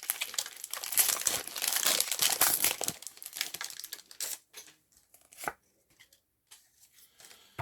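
Foil Pokémon booster pack wrappers crinkling and tearing as packs are opened, dense crackling for about four seconds, then a few scattered light clicks and taps.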